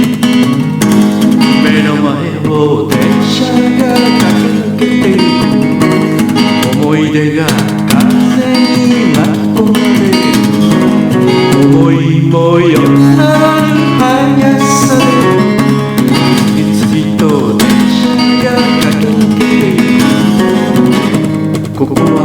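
Acoustic guitar strummed and picked in a steady rhythm.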